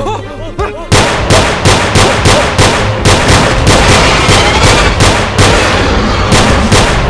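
Rapid gunfire sound effect: a steady string of sharp shots, about three a second, starting about a second in and stopping near the end, over background music.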